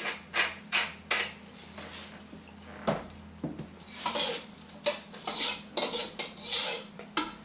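Short clinks and scrapes of kitchen utensils and dishes: a quick run of them at the start, a single sharp click about three seconds in, and a longer cluster of rasping strokes in the second half.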